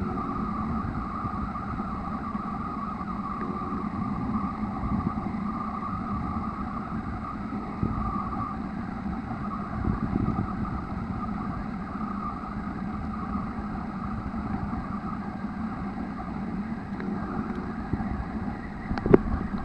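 Steady, muffled underwater drone with a low hum and a higher band, picked up on a submerged recording; a couple of sharp knocks near the end.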